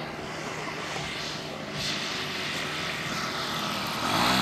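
Radio-controlled scale model propeller plane on its landing approach, its engine and propeller droning. The sound grows loudest as the plane passes close about four seconds in.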